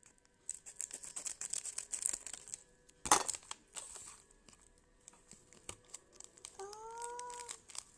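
Plastic cereal packaging being handled and torn open: crinkling and small clicks, then one sharp rip about three seconds in. A short high-pitched voice sounds near the end.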